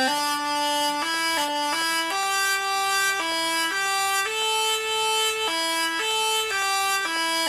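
Electronic synthesizer playing a buzzy, reedy tone that steps abruptly from note to note, up and down, like a simple tune or a stepped siren.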